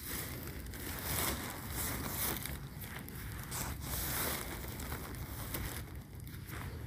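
Footsteps crunching through dry cut grass and straw at an irregular pace, over a low rumble of wind on the microphone.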